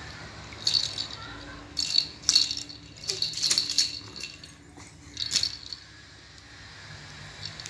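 Baby's toy rattle shaken in four short bursts of rattling, with pauses between them.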